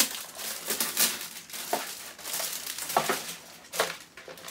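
Clear plastic packaging crinkling and rustling as it is pulled off a new binder, with sharp crackles about a second in and twice more near the end.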